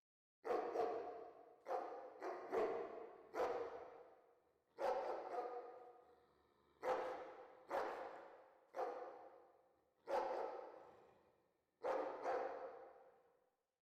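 A distant dog barking in irregular runs of one to three barks, about a dozen in all, each bark trailing off in a long echo.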